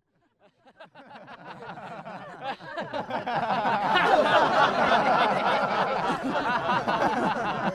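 A group of people laughing together, as in a laughter yoga session: many voices overlapping. The laughter fades in out of silence and builds to a loud, continuous crescendo by the middle.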